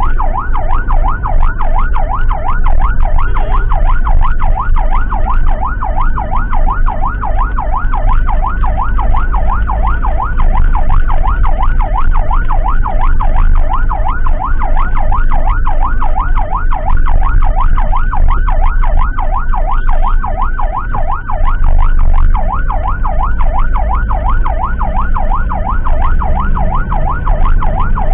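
Emergency vehicle siren sounding a fast yelp, its pitch sweeping up and down several times a second without a break, over the low rumble of a vehicle on the road.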